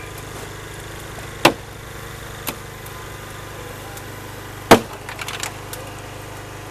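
Hydraulic rescue tool biting into a car's body with sharp cracks of breaking metal and glass: one about one and a half seconds in, a smaller one a second later, and the loudest near the end, followed by a short crackle. Under it the hydraulic pump's engine runs with a steady hum.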